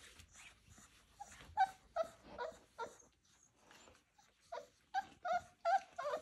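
Boerboel puppies whimpering and yipping in play: short, high-pitched yelps in two quick runs of four or five, with a quieter gap between them.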